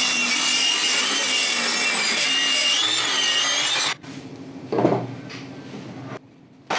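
INGCO 20V cordless circular saw cutting through a wood board, with a high blade whine that wavers slightly, stopping abruptly about four seconds in. After that come quieter handling sounds, with one thump about five seconds in.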